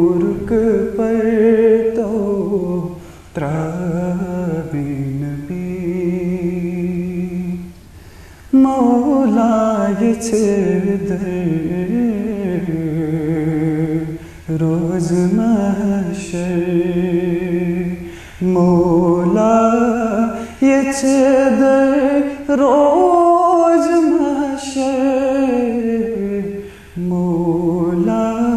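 A naat, an Islamic devotional song in praise of the Prophet, sung in long held notes that slide from pitch to pitch. The phrases are broken by short breaths every few seconds.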